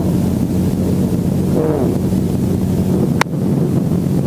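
Helicopter engine and rotor running with a steady drone. A faint voice comes in about two seconds in, and a single sharp click sounds just after three seconds.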